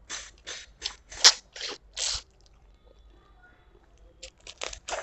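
Close-miked eating sounds: crunchy chewing and biting of food, a quick run of crunches in the first two seconds, a pause, then more crunching from about four seconds in.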